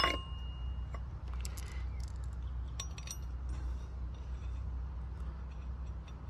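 A metal tool or part clinks once at the start with a brief ring, then a few faint light clicks of metal parts being handled, over a steady low hum.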